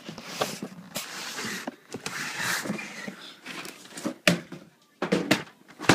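A cardboard shoe box being handled and opened: rustling and scraping for a few seconds, then several sharp knocks and bumps near the end.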